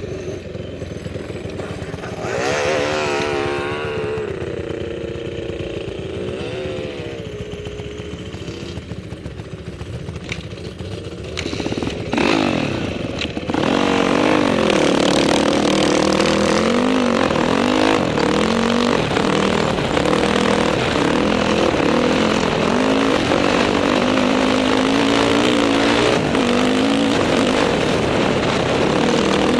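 Dirt bike engine running and revving, its pitch rising and falling with the throttle. About halfway through it becomes suddenly louder, with rushing wind noise over the engine as the bike is ridden at speed.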